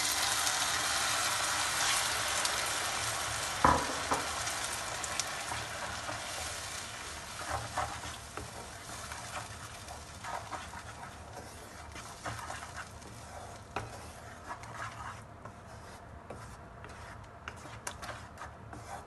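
Blended tomato hitting fried onions in a hot frying pan: the oil sizzles loudly at first, then the sizzle dies down steadily as the wet puree cools the pan. There is a single knock on the pan a little under four seconds in, and later a wooden spatula scrapes through the thickening sauce as it is stirred.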